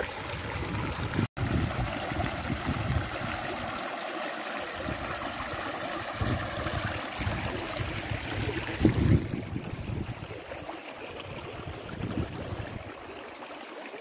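Water of a shallow stream running, an even rushing hiss with irregular low thuds underneath. The hiss thins out about nine seconds in.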